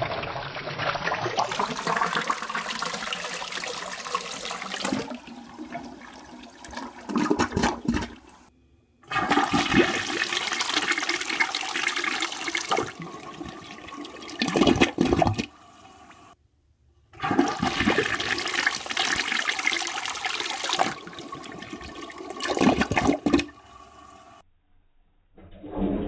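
A 1997 American Standard Hydra toilet flushing on a minimum-water flapper setting, three flushes in a row separated by short silences. Each flush starts with a brisk rush of water and ends in a louder, deep gurgle as the siphon breaks.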